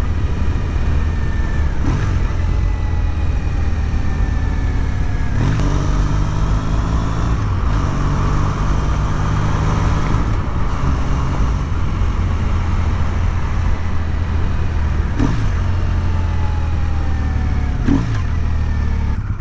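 Triumph T100 motorcycle's parallel-twin engine running steadily under way, with wind and road noise. The engine note changes about five seconds in.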